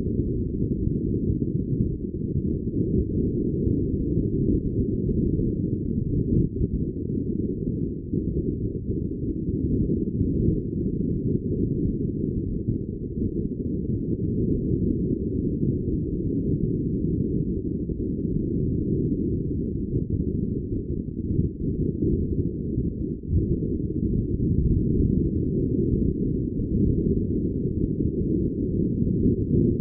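Steady, muffled low rumble of wind buffeting the microphone, with nothing in the higher range.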